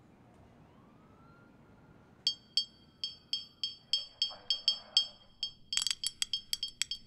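Green glass beer bottles tapped in a rhythm: sharp, ringing clinks about three a second. They start after about two seconds of near quiet and become faster and denser about two thirds of the way in.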